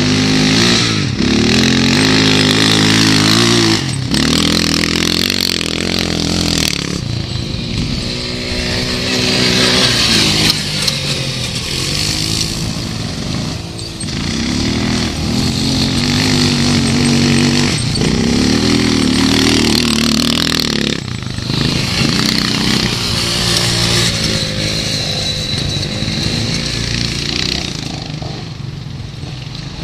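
Quad ATV engine revving up and dropping back over and over, with a steady hiss over it, as the rider tries to spin the quad in donuts on loose ground where the tyres won't grip.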